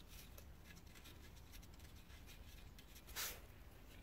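Near silence with faint small handling clicks and one brief scrape about three seconds in, as gloved hands thread 10 mm nuts onto the studs of the oil sump's rear bracket.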